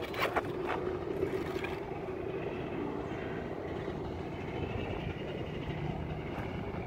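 Arrma Kraton RC truck's electric motor and drivetrain running steadily with the truck held up, the left front wheel not driven because its driveshaft has popped out. A few sharp clicks in the first second.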